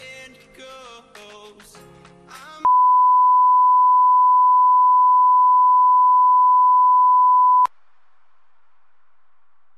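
Background music, cut off about two and a half seconds in by a loud, steady 1 kHz test tone that goes with colour bars; the tone lasts about five seconds and stops abruptly, leaving a faint hiss.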